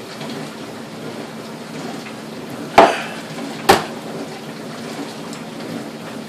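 A drinking glass set down on a hard countertop: two sharp knocks about a second apart, near the middle.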